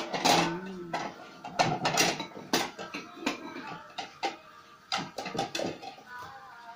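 Irregular clicks, clinks and knocks of small hard objects being handled, several in quick succession.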